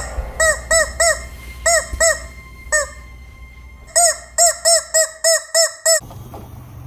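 Rubber chicken squeeze toys squeaking in quick runs, each squeak a short rise and fall in pitch: about eight squeaks, a pause of about a second, then another run of about seven, a squeaked line of dialogue. A faint low hum near the end.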